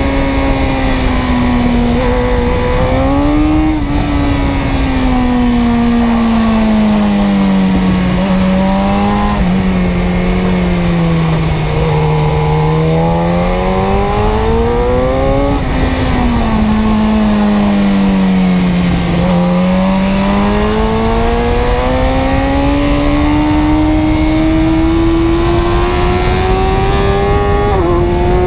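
A car engine running at high revs. Its pitch sinks and climbs smoothly over several seconds at a time, with a few abrupt jumps in pitch along the way.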